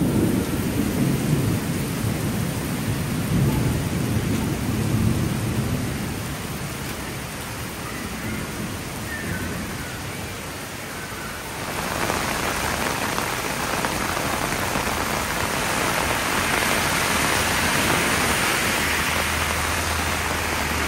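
Heavy downpour: a dense, even hiss of rain, with a low rumble through the first several seconds that dies away. About twelve seconds in, the rain hiss grows suddenly louder and stays that way.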